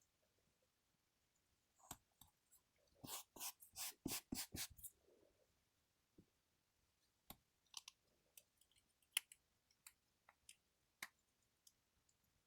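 Faint clicks and taps from small parts of a smartwatch being handled and fitted together: a quick run of clicks two to five seconds in, then single sharp clicks every half second or so.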